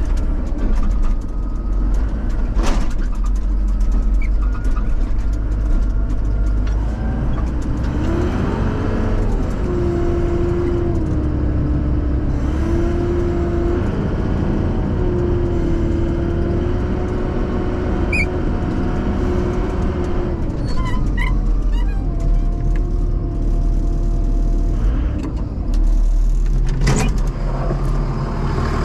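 Wheel loader's diesel engine running and revving under load as it lifts the car crusher. A pitched whine comes in about eight seconds in and holds for about twelve seconds, and there are sharp knocks near the start and near the end.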